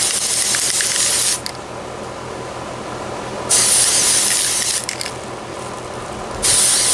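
Citadel spray primer aerosol can sprayed in short bursts: a hiss that stops about a second in, another of just over a second in the middle, and a third starting near the end.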